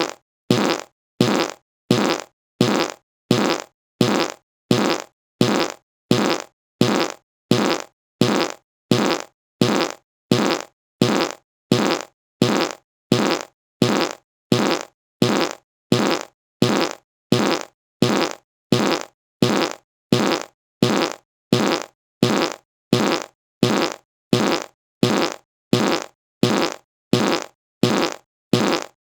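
A short fart repeated over and over, about three every two seconds, each one starting sharply and fading out quickly.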